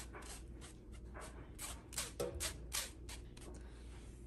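Spatula scraping riced cauliflower out of a glass bowl: a quick, irregular run of short soft scrapes.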